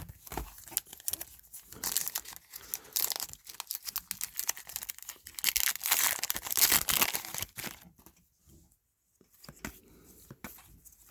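Trading-card pack wrapper being torn open and crinkled in the hands for about eight seconds, then only faint rustling and light ticks.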